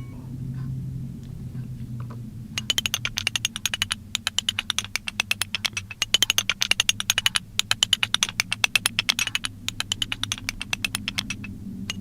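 Typewriter keys being struck in a fast, uneven run of clacks, starting a couple of seconds in and stopping shortly before the end, over a low steady hum.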